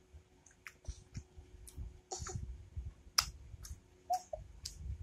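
A child chewing a mouthful of tomato with closed mouth: a dozen or so scattered wet clicks and smacks.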